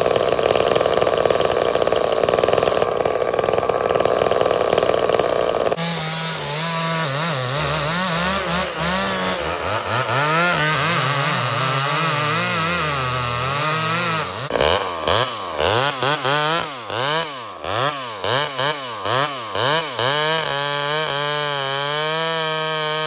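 Vintage Homelite two-stroke chainsaw running. For the first several seconds it gives a loud, dense rasp. About six seconds in the sound changes abruptly to the engine revving up and down, blipped in bursts about a second apart, and near the end it holds a steady pitch as the saw cuts into a log.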